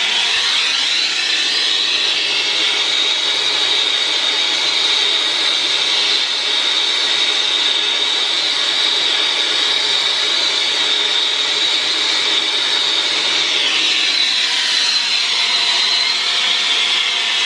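Brazing torch flame burning with a steady hissing roar, heating a brazed joint to sweat the TXV off a copper line.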